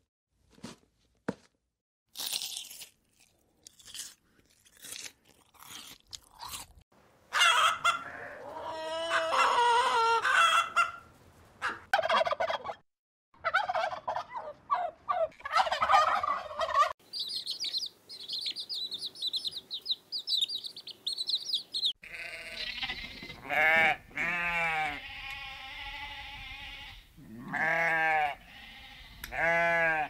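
A run of farm-animal calls: a tom turkey gobbling repeatedly in the middle, then high rapid chirping of small birds, then goats bleating with wavering calls in the last several seconds.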